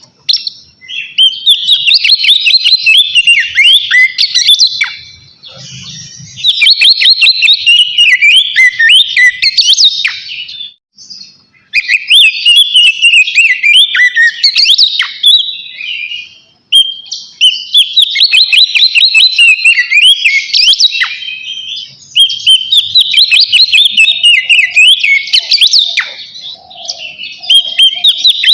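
Oriental magpie-robin (kacer) singing full-voiced: loud, rapid runs of whistled and trilled notes in long phrases, broken by brief pauses about 11 and 17 seconds in. This is the open, rival-calling song known as ngeplong.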